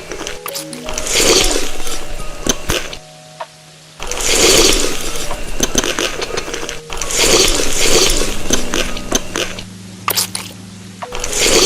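Close-miked eating sounds: bursts of crunching and chewing, about a second each, with gaps between them. Light background music plays underneath.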